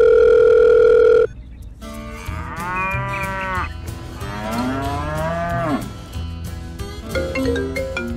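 A loud, steady electronic telephone tone that cuts off about a second in, followed by two long cow moos, each rising and then falling in pitch. Light xylophone-like music notes come in near the end.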